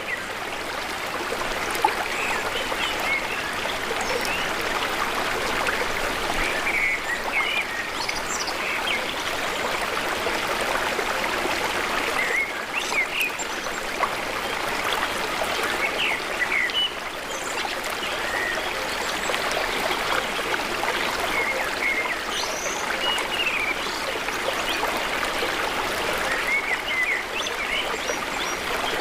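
Shallow river water running steadily through a diversion, a constant rushing trickle, with short high chirps scattered over it.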